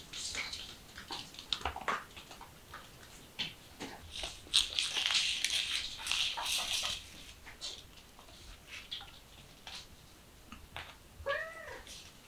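Kittens playing: small paws scampering and the plastic wobble toy knocking and scraping on a wooden floor, louder for a few seconds in the middle. Near the end, one short kitten meow that rises and falls.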